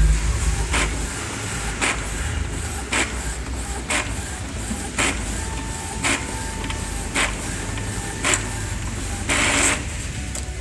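Epson L210 EcoTank inkjet printer making a copy and running normally. The mechanism runs steadily with a short click about once a second and a longer burst of noise near the end.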